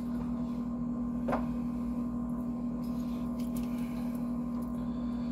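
Steady electrical hum at a constant level, with one faint click about a second and a half in.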